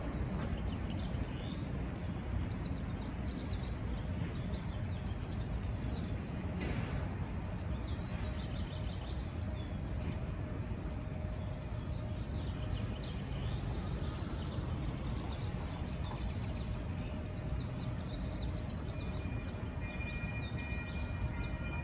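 Small birds chirping over a steady low rumble of outdoor street noise. Near the end a steady high tone at several pitches sets in and holds.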